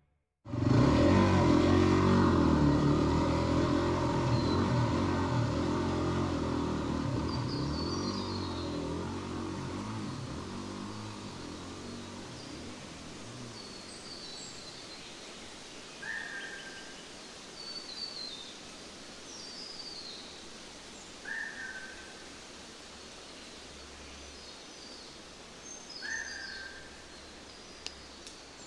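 An engine fades away into the distance over the first ten seconds or so. After it, birds chirp and call over a faint outdoor hiss, and one short falling call repeats about every five seconds.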